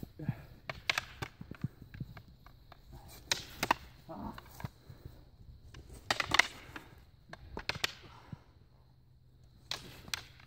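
Wooden practice sticks clacking against each other in quick flurries of strikes, a few seconds apart, during a stick-fighting bout.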